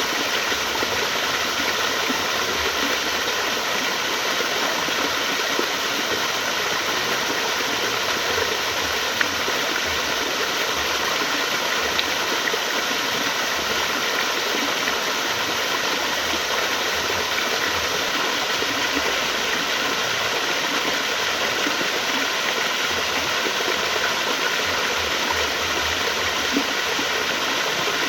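Flowing water running steadily, an even rushing sound that holds the same level throughout.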